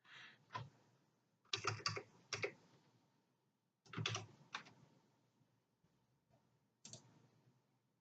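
Laptop keyboard typing in four short bursts of keystrokes with pauses between, close to the built-in microphone.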